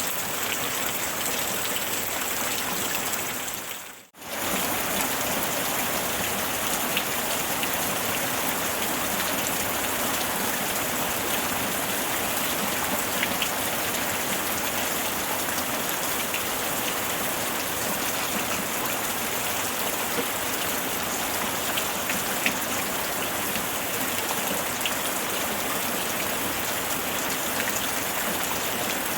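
Steady rainfall, an even hiss with scattered drops ticking. About four seconds in the sound briefly fades out and comes straight back.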